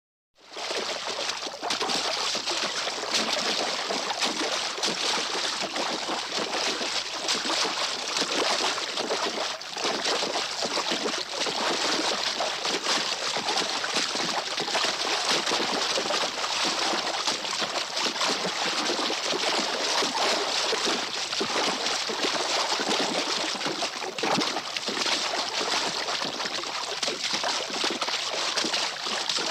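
Continuous splashing and sloshing of water with dripping and trickling, a sound effect for an animal coming up out of water. It starts within the first half second and keeps an even level with no pauses.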